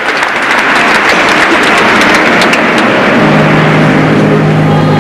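Congregation applauding: a loud, dense clatter of many hands. About three seconds in, a low held chord of music comes in beneath the clapping.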